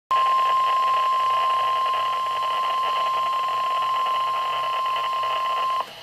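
NOAA Weather Radio warning alarm tone: a single steady 1050 Hz tone held for nearly six seconds, coming through a Midland weather radio's speaker with static around it, and cutting off sharply near the end. It is the alert tone that announces a warning broadcast, here a severe thunderstorm warning.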